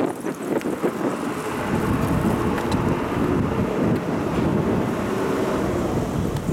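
Electric train running along the elevated railway viaduct close by: a steady low rumble that builds about a second and a half in, with a faint motor hum, mixed with wind buffeting the microphone.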